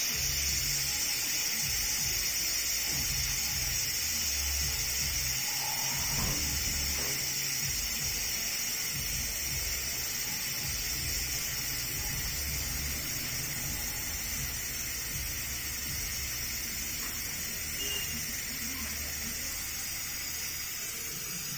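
Compressed air hissing steadily out through the release valve of a mini OCA laminating machine's pressure chamber, slowly getting quieter. This is the chamber being depressurised at the end of a lamination cycle.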